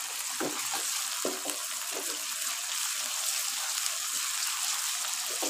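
Chopped onions and ginger-garlic paste sizzling in hot ghee in a wok, stirred with a wooden spatula. A steady frying hiss runs throughout, with the spatula scraping the pan now and then.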